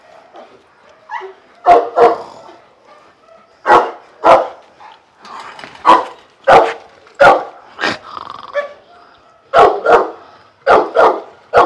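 Dog barking: about a dozen short, sharp barks, often in quick pairs.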